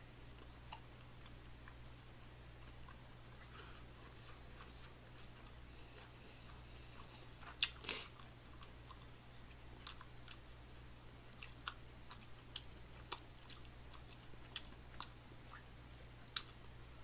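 Quiet chewing close to a microphone, with scattered short mouth clicks and smacks that come more often in the second half, over a steady low hum.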